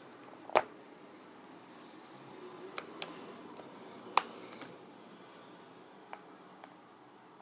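Scattered clicks and taps of small plastic toy pieces being handled on a plastic playset, with two sharper clicks about half a second in and about four seconds in and a few fainter ticks between.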